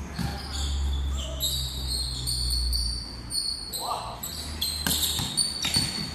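Basketball game on a concrete court: the ball bouncing, with sharp thuds a few times near the end, short high squeaks throughout, and players' voices now and then.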